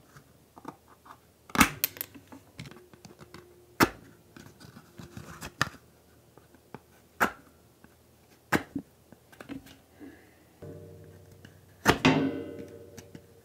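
A matchbox and matches being handled: scattered sharp clicks and short scrapes, the loudest about a second and a half in and near the end. From about ten seconds in a low steady hum runs underneath.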